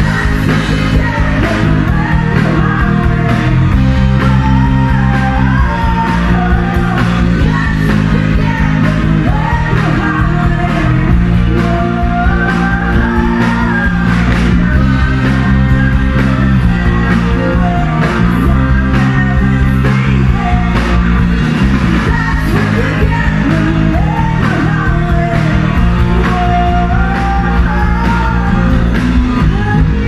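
Live rock band playing a song through a stage PA: a woman's lead vocal over electric bass guitar, drum kit and guitar, loud and without a break.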